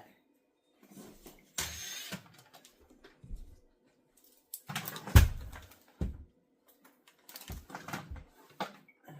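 Objects being handled and set down: scattered knocks and clicks, a short rustling rush about two seconds in, and a heavy thump about five seconds in, followed by a lighter one.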